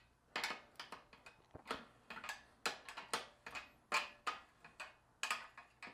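Adjustable ratcheting wrench clicking as it tightens a rear axle nut on an e-bike: quiet, irregular clicks, a few a second.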